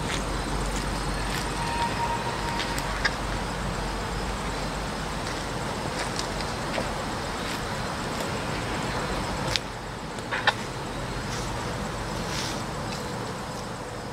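Diesel freight train rolling slowly away along the track: a steady rumble of the locomotive and wheels on rail, with a few sharp metallic clanks. It fades gradually near the end.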